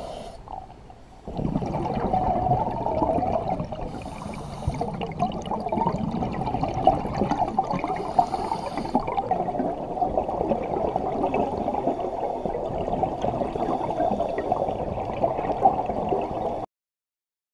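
Underwater sound through a diving camera's housing: a steady muffled water rush, with a scuba diver's exhaled bubbles hissing up twice, about four seconds apart. It gets louder a little over a second in and cuts off abruptly near the end.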